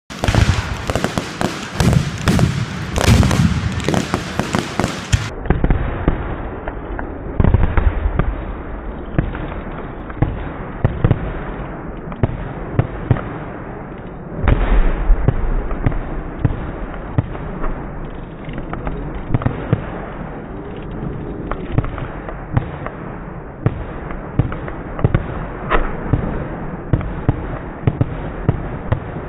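Fireworks display: aerial shells bursting in a fast, irregular string of sharp pops and bangs. A few heavier booms stand out, the biggest about fifteen seconds in.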